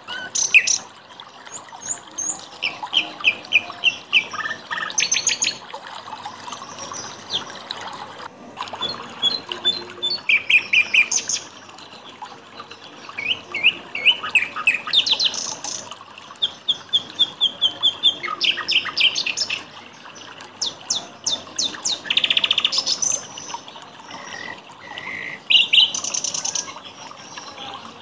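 Several songbirds singing, with quick runs of repeated chirps and whistled phrases coming one after another, over a faint steady trickle of water.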